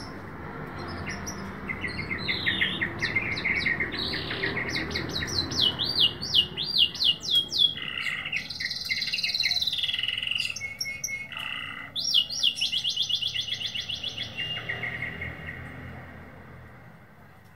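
Birdsong: rapid runs of repeated sweeping whistled notes and trills over a faint steady background, fading out near the end.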